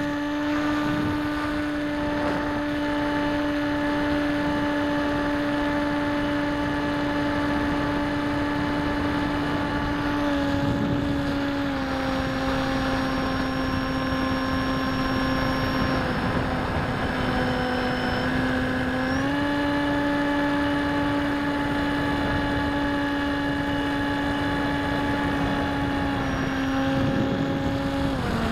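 Bixler v1.1 foam RC plane's electric motor and pusher propeller running at high throttle, heard from the camera on the plane in flight: a steady buzzing drone over a hiss of air. Its pitch steps down slightly several times and back up once midway, then drops near the end as the throttle is eased.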